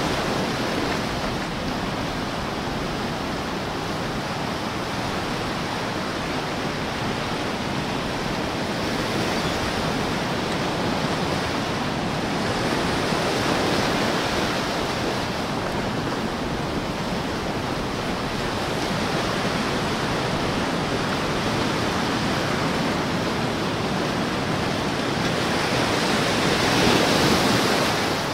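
Small ocean waves washing in over rocks and sand at the water's edge: a continuous wash that swells as each wave comes in, loudest near the end.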